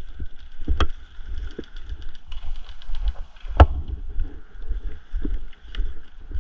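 Airsoft guns firing during a game: two sharp single cracks, one just under a second in and one about three and a half seconds in, with a quick run of faint ticks between them, over a low rumble on the microphone.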